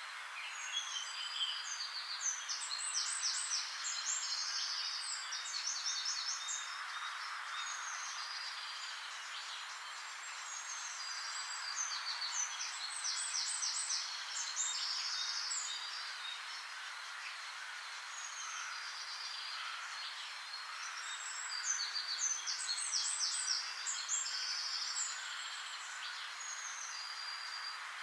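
Outdoor birdsong over a steady background hiss: a songbird sings the same short, rapid phrase three times, about ten seconds apart, with scattered chirps in between.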